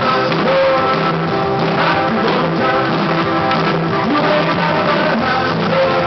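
Loud dance music with a singer, playing steadily with a regular beat.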